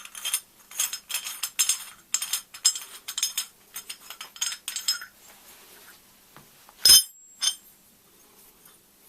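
A stainless steel pipe fitting being scraped and clinked by hand in quick strokes for about five seconds, as in wire-brushing fresh TIG welds, the metal ringing high. Near seven seconds comes a loud ringing metal clank, then a lighter one.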